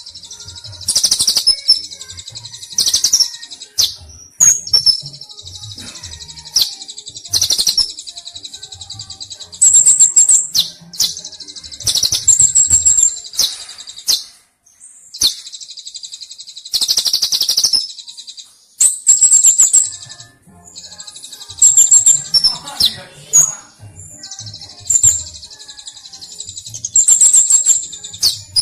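Kolibri ninja sunbird singing: loud, high, rapid twittering phrases repeated every second or two, with quieter continuous twittering in between.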